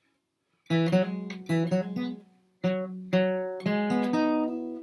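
Flatpicked acoustic guitar with a capo, playing a D-chord arpeggio lick twice in quick picked notes after a brief silence. The notes ring on over one another like a strummed chord instead of sounding apart, the result of barring the first finger rather than lifting it between notes.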